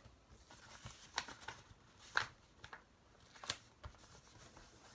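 Calendar-page wrapping paper being handled and folded around a book: faint rustling with a few short paper crinkles.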